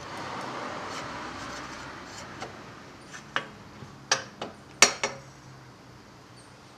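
Metal tools or fork parts clinking together, about six sharp clinks in quick succession around the middle, after a soft rushing noise at the start.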